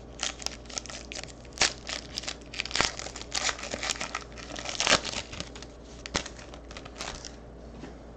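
Foil wrapper of a Panini Luminance football card pack being torn open: a run of crinkling, tearing rustles that dies away about seven seconds in.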